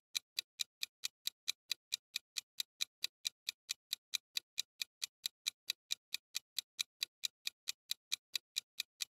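Clock-ticking sound effect for a quiz countdown timer: quiet, even ticks, about four or five a second.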